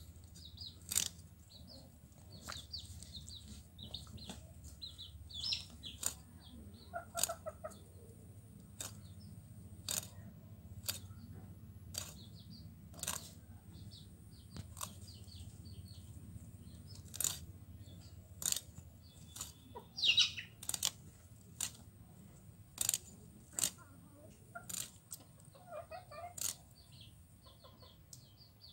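Snakehead fish being scraped against the curved blade of a floor-mounted boti: a sharp scrape-click roughly every second, at uneven spacing. Hens cluck and small birds chirp around it.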